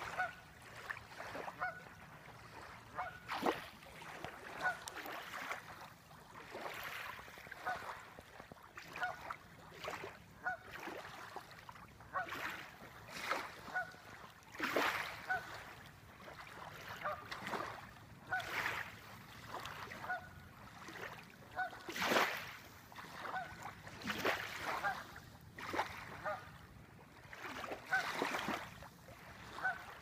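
Small waves lapping and splashing irregularly against the shore, with short, repeated calls of a water bird throughout.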